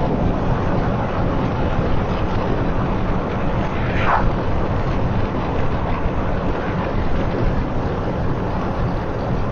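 Steady road and engine noise heard from inside a moving car, with a brief rising tone about four seconds in.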